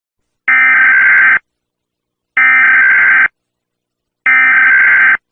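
Emergency Alert System SAME header: three harsh, screechy digital data bursts, each about a second long, about a second apart.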